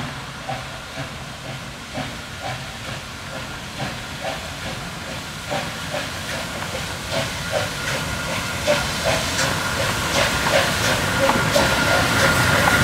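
MÁV class 424 4-8-0 steam locomotive working a train, its exhaust beating in an even rhythm with steam hiss, about two beats a second at first and quickening as it comes closer and grows louder. A thin steady whine comes up near the end as the engine passes.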